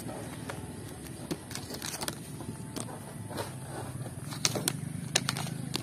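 Plastic toy train track pieces clicking and clattering as they are handled and lifted out of a plastic basket, over a steady low background hum.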